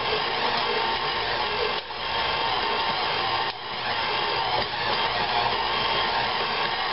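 KitchenAid Classic stand mixer running steadily as its dough hook kneads stiff pizza dough in the steel bowl. The sound dips briefly twice.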